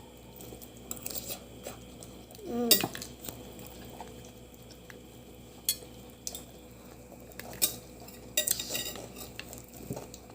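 Scattered sharp clicks and clinks of cutlery and dishes while crab is being eaten, with crab shell being cracked and picked apart. A short vocal sound, the loudest moment, comes about a quarter of the way in.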